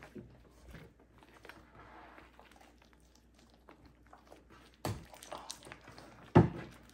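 Hands squishing and folding foamy shaving cream into slime, with faint sticky squelching and crackling. Two sharp knocks come near the end.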